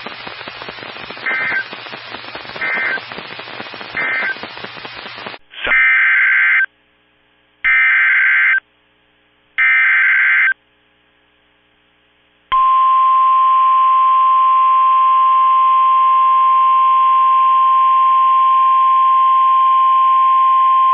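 NOAA Weather Radio Emergency Alert System sequence over a hissing radio signal. For about five seconds there is static with three short beeps, the end-of-message code closing the previous warning. Then come three roughly one-second SAME data header bursts a second apart, announcing a new warning, and then the steady 1050 Hz warning alarm tone, held for about nine seconds before it cuts off.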